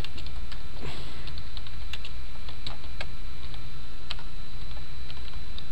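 Computer keyboard typing: irregular, separate keystrokes, over a steady low hum.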